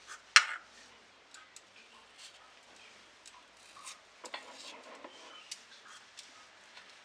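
A small knife cutting and scraping pieces of dried salted raw mango over a small bowl: scattered light clicks and taps, with one sharp knock about half a second in and a cluster of scraping taps around four seconds in.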